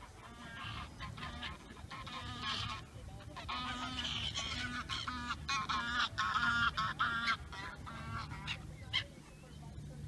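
A flock of black-headed gulls calling, many short calls one after another, busiest and loudest in the middle and thinning out near the end.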